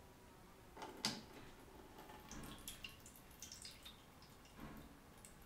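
Water poured from a brass jug's spout into a terracotta bowl, a thin stream trickling and splashing faintly. A light knock about a second in is the loudest sound.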